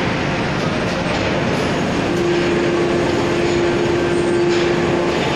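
A 1-ton rail-mounted forging manipulator travels and feeds a glowing billet under a 1000-ton forging press, with steady heavy machinery noise. From about two seconds in, a steady whine joins and lasts about three seconds.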